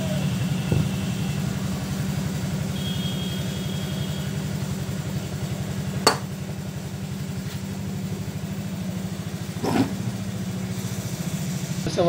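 Steady low electrical hum from the Samsung top-load washer's powered drain motor, held fully pulled in during a spin test. Two sharp clicks come about six and ten seconds in.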